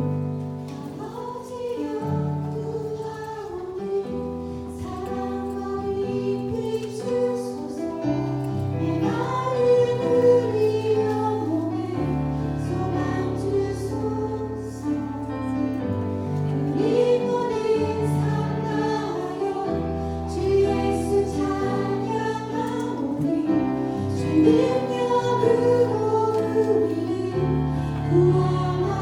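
Church praise team singing a worship song together over sustained bass chords that change every couple of seconds.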